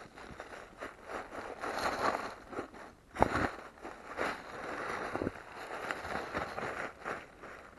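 Footsteps of someone walking, a steady run of short strides, with one sharp louder knock a little over three seconds in.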